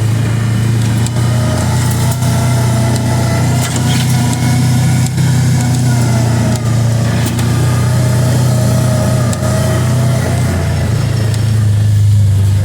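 Kawasaki Teryx 800 side-by-side's V-twin engine running steadily at low speed, with scattered knocks and rattles over it and the engine getting a little louder near the end.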